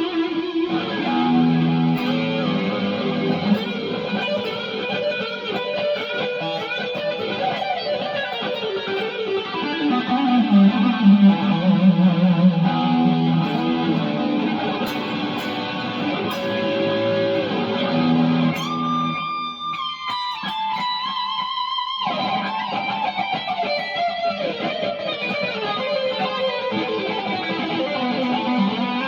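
Ash-body Fender Thinline electric guitar playing improvised lead lines, a steady run of shifting single notes. About two-thirds of the way through, one held, wavering note rings nearly alone for a couple of seconds before the phrases pick up again.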